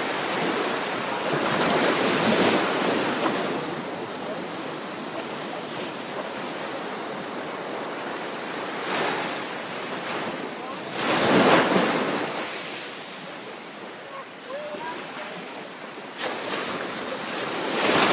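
Ocean surf breaking and washing up the beach, swelling and ebbing in several waves, the loudest just past the middle, with wind buffeting the microphone.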